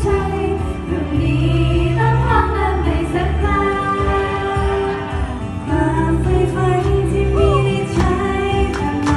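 Live girl-group pop song through a stage PA: female voices singing into microphones over a backing track with a sustained bass line.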